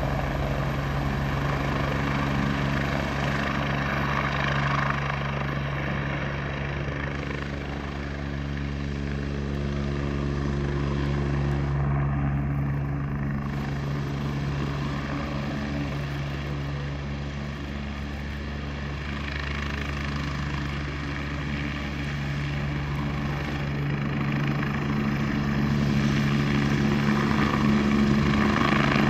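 AgustaWestland AW109SP GrandNew helicopter, with its twin Pratt & Whitney PW207C turboshafts and main rotor running, descending into a low hover over grass. The sound is a steady rotor-and-turbine noise that grows a little louder in the last few seconds.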